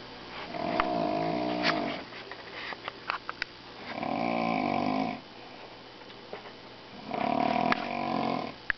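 A person snoring loudly with a buzzing, bullhorn-like tone: three long snores about three seconds apart, with a few faint clicks in between.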